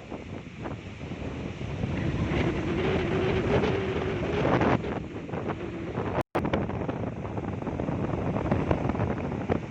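Sea waves washing onto a beach, with wind buffeting the microphone. The sound cuts out for a split second about six seconds in.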